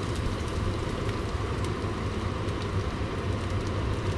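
Raw rice grains sizzling steadily as they toast in a wok, with no stirring.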